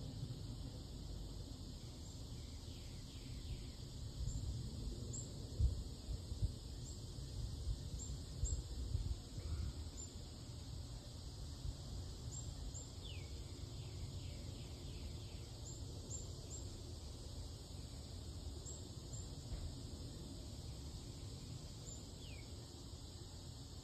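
Outdoor ambience: a light breeze gusting on the microphone, strongest a few seconds in, with birds chirping now and then.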